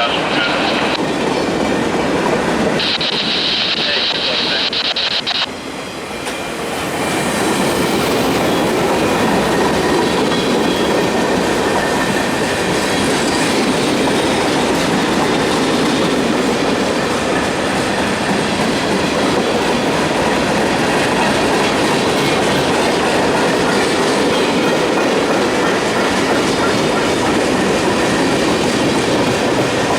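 Freight train cars rolling past at speed, their wheels clacking steadily over the rail joints. A high-pitched sound rides over it for a couple of seconds about three seconds in.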